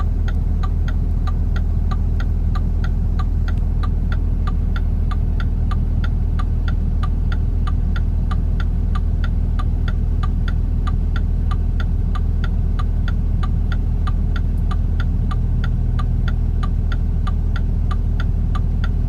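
Steady low hum of an idling vehicle engine, with a vehicle's flasher relay clicking evenly about three times a second.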